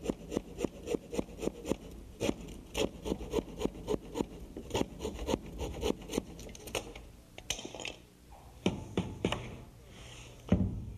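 Handsaw cutting off a wooden shingle shim flush with a door jamb, in quick even strokes about three or four a second that stop about two-thirds of the way through. A few footsteps on the wooden floor follow near the end.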